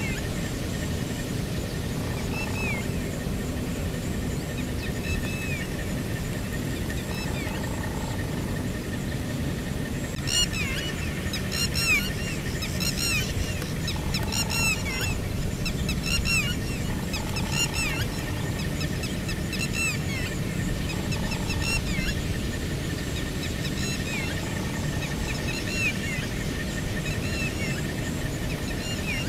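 Birds calling over and over with short, downward-slurred notes, busiest in the middle, over a steady low rumble and a thin steady high tone.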